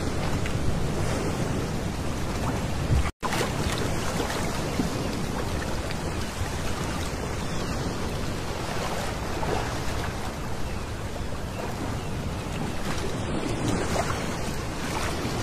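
Small sea waves washing onto a pebble beach: a steady surf hiss that swells and eases as each wave breaks and draws back. The sound cuts out completely for a split second about three seconds in.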